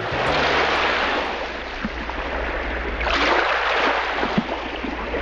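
Rushing water, like waves surging, swelling at the start and again about three seconds in over a steady low rumble.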